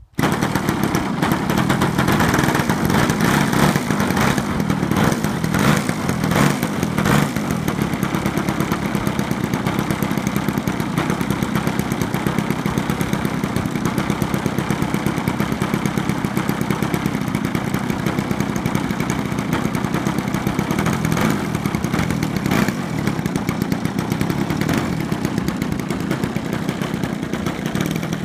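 DLE55 single-cylinder two-stroke petrol engine of an MX-2 RC model aeroplane running steadily at a fairly constant speed. The sound cuts in suddenly at the start.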